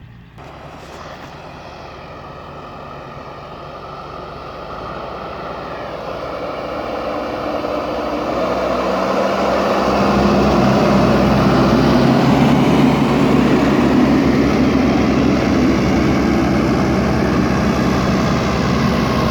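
A heavy vehicle's diesel engine coming closer, growing steadily louder over about ten seconds, then running loud and steady.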